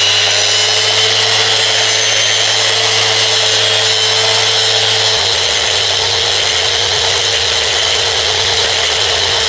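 Handheld electric power tool with a Scotch-Brite pad running steadily with a whine, buffing metal polish into a cast iron machine table.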